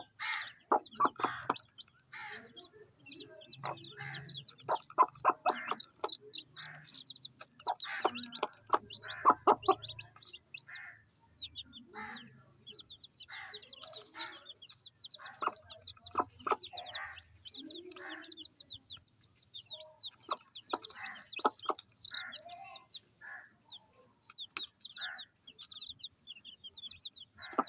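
A mother hen clucking repeatedly among her baby chicks, which peep constantly in many short, high chirps.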